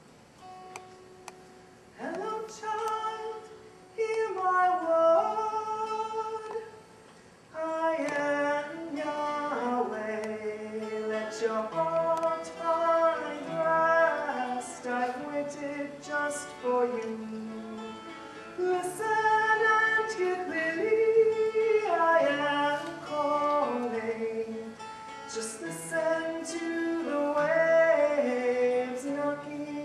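A woman singing a worship song to her own acoustic guitar accompaniment. A few soft guitar notes come first, and the singing begins about two seconds in.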